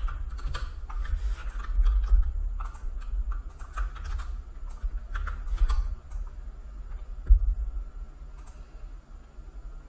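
Computer keyboard typing and clicks, irregular and frequent for the first six seconds and then sparser, with dull low thumps against the desk, the loudest about seven seconds in.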